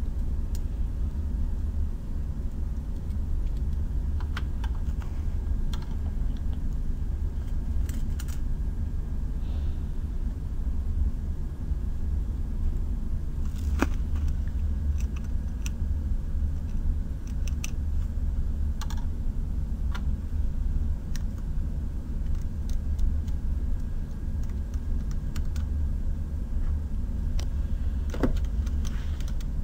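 Steady low rumble of background noise with scattered light clicks and taps from soldering work on a circuit board.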